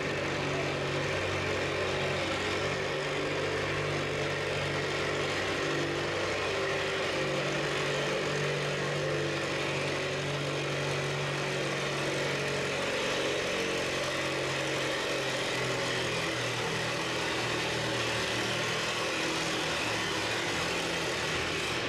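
Minneapolis-Moline classic tractor's engine working under full load as it pulls a weight-transfer sled down a tractor-pull track, running hard at a steady pitch.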